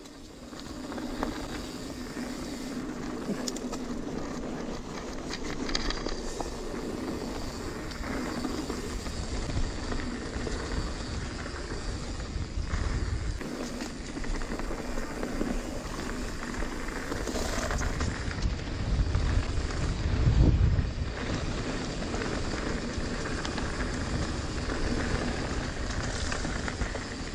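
Mountain bike tyres rolling fast down a dirt trail strewn with dry leaves, with wind noise on the microphone as a steady rushing hiss. A louder low rumble swells about twenty seconds in.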